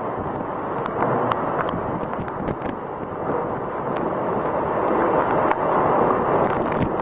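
Category 4 hurricane wind rushing through trees and across the microphone in driving rain, with scattered sharp ticks. It grows louder from about halfway through.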